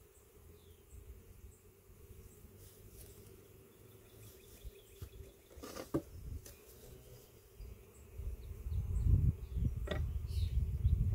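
Honey bees buzzing around the open hive in a steady hum. A wooden hive frame knocks sharply about six seconds in and again near ten seconds as it is lifted and set into the hive box, with a louder low rumble over the last few seconds.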